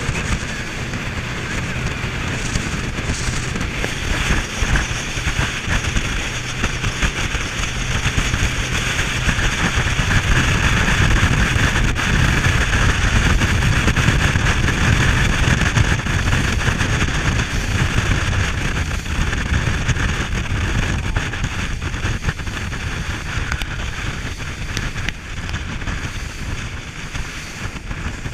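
RIB boat under way on open water: its engine running under wind buffeting the microphone and water rushing along the hull. The noise swells about a third of the way in and eases off near the end.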